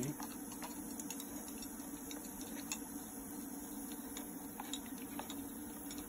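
Coca-Cola fizzing and crackling with many small scattered pops as welder current is passed through it for electrolysis, bubbling busily at the electrodes, over a steady electrical hum.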